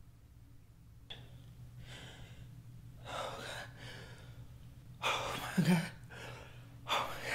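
A man's heavy, gasping breaths in distress, a handful in a row, growing louder toward the end, over a faint steady hum.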